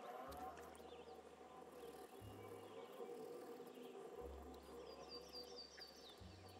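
Faint ambient background music of slow gliding tones over a low hum, with a quick run of high chirps about five seconds in.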